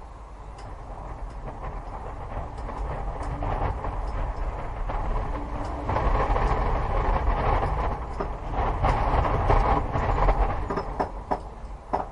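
A low rumble with a dense rattle of clicks, growing steadily louder and loudest in the second half.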